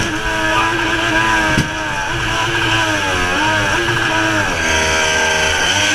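Mini jet boat's engine running hard, its pitch wavering up and down, over the rush of whitewater, with a brief knock about a second and a half in. The engine is hitting the rev limiter because the jet's impeller is badly worn.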